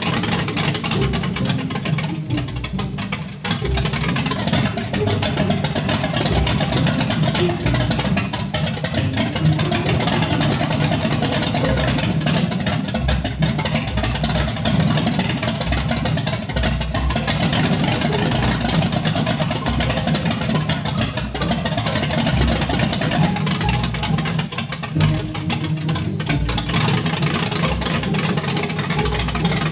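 Blueprint Engines 540 cubic-inch big-block Chevy V8 in a 1969 C10 pickup, running on open headers with no exhaust system fitted: a steady, uneven low rumble.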